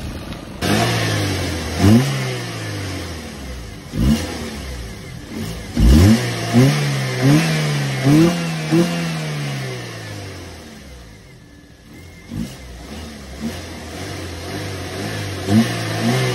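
Car engine idling and being blipped again and again, its pitch jumping up sharply and falling back to idle each time, with a quieter lull about two-thirds of the way through.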